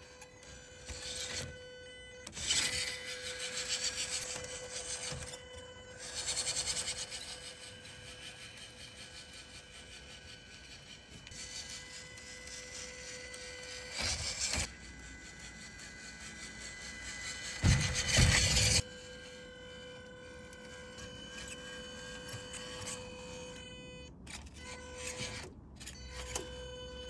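Small electric drive motors and plastic gearboxes of toy RC off-road cars whining, rising in several louder bursts of a second or two as the cars drive and climb.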